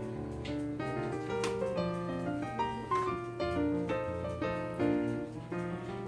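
Background piano music, a quick succession of notes over a steady bass.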